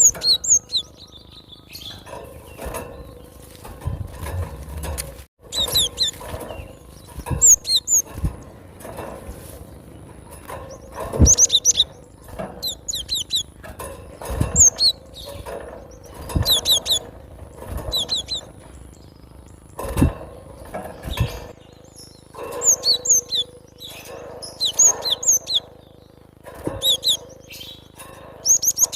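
Cinereous tit (gelatik batu) singing in repeated quick bursts of short, high chirps every second or two. Occasional sharp knocks or thumps fall between the phrases.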